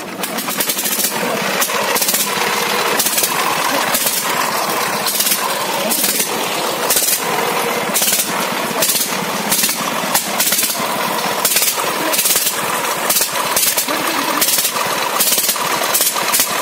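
Hand-cranked single-cylinder tiller engine of a homemade loader catching right at the start and then running steadily with a fast, rough knocking beat.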